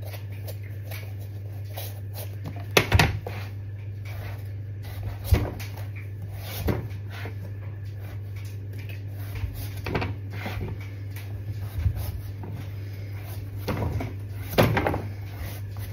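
Kitchen knife trimming the skin off a pumpkin, with scattered sharp knocks and scrapes of the blade a few seconds apart, the loudest about three seconds in and near the end, over a steady low hum.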